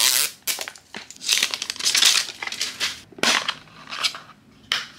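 Plastic packaging of a blind-box toy cube crinkling and rustling in irregular bursts as it is unsealed and opened by hand.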